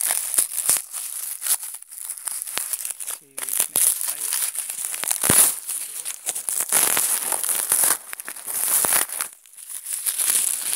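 Dry leaf litter and corn husks rustling and crackling close to the microphone as they are handled, an irregular run of crinkles and small snaps.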